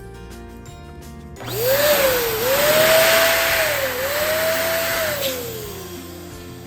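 Small electric balloon pump switched on about a second and a half in, its motor speeding up with a rush of air, dipping twice as it works, then winding down and stopping near the end. Background music plays throughout.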